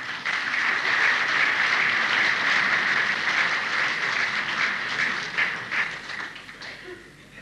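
Audience applauding: a dense, even clatter of many hands clapping that thins out and fades over the last couple of seconds, heard on an old cassette tape recording.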